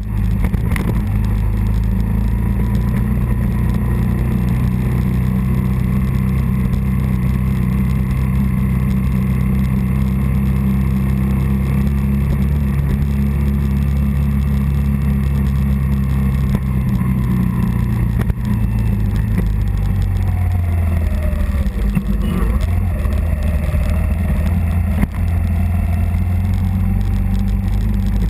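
Early-1980s Suzuki 125 motorcycle engine running under way, heard from the rider's camera. The engine note holds steady at first, then falls and climbs again a few times in the second half as the throttle changes.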